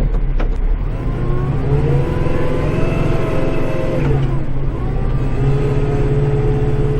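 Kubota tractor's diesel engine heard from inside the cab, revving up about two seconds in, holding, easing back down around four and a half seconds, then running steady.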